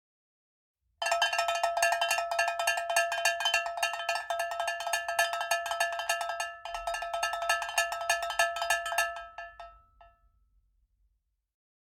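Rapid metallic ringing: one bell-like pitch struck many times a second, starting abruptly about a second in and fading out near the end.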